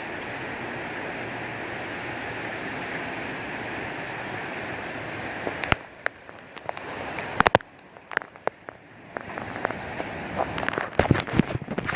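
Thunderstorm wind and heavy rain with a steady rush that drops off suddenly about six seconds in. Scattered sharp taps of large raindrops close by follow, then the rush builds again with more drops hitting near the end.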